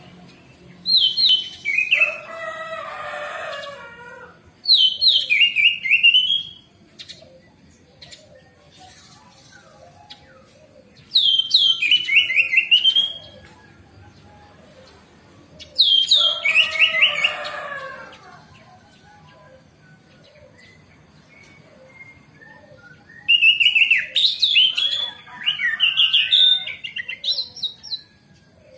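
Orange-headed thrush (anis merah) singing five bouts of loud, rapid whistled phrases, separated by pauses of a few seconds.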